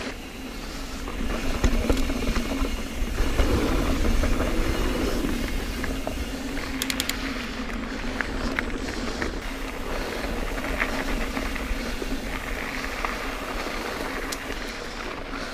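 Mountain bike ridden along a dirt singletrack: tyres rolling over dirt, the bike rattling, and a steady low rumble of wind on the microphone, with a few sharp clicks about seven seconds in.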